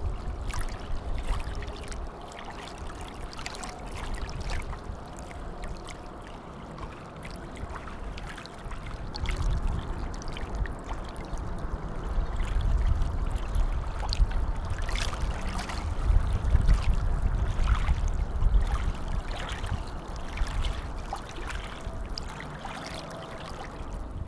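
Outdoor ambience of moving water, trickling and lapping. A deep rumble swells twice and fades, with scattered small splashes or clicks over it.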